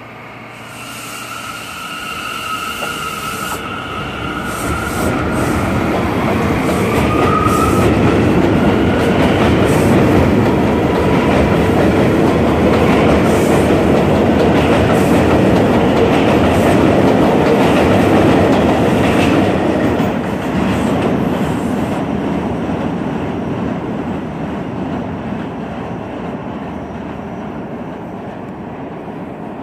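New York City subway train running close past on elevated track, its wheels clattering on the rails. The sound builds for several seconds, stays loud while the cars go by, then fades as the train draws away. In the first seconds there is a high whine, and a tone rises in pitch about seven seconds in.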